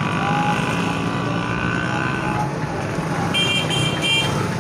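Street traffic noise with an engine running steadily close by. Near the end come three short, high-pitched beeps.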